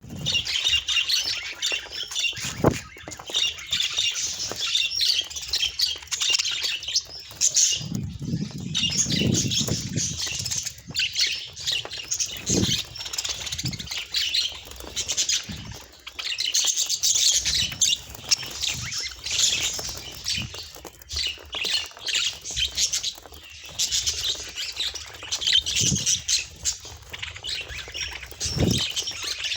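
Budgerigars chattering and chirping continuously, a busy mass of overlapping high twitters and squawks, with a few dull low thumps and a short low rumble about eight seconds in.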